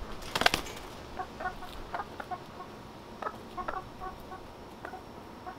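A hen's wings flap in a short burst about half a second in as she flutters up, then she makes a string of short clucks, spaced unevenly through the rest of the moment.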